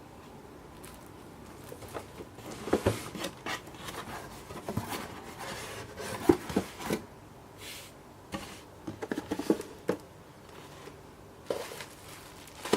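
Hands handling toy packaging: irregular clicks, taps and short rustling scrapes of cardboard and plastic.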